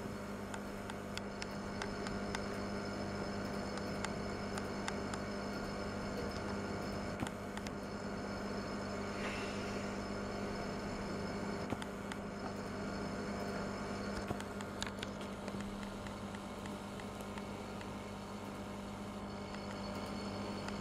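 Steady low electrical hum from running aquarium equipment, with a few faint clicks.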